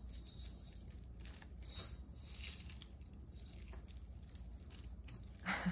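Faint handling of tangled necklaces: soft rustling with a few small, bright clinks of beads and chain as the pieces are pulled apart.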